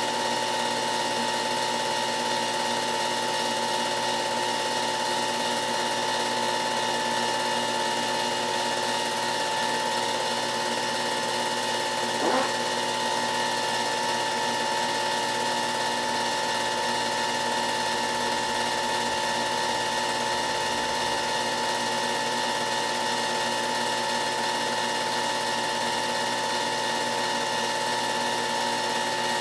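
Steady mechanical whirr of a film projector running, with no other sound from the footage and one brief wavering blip about twelve seconds in.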